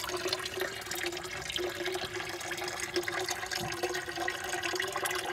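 Steady running and splashing of water in a small garden pond, the flow from its pump-fed filter returning to the surface, with a steady hum underneath.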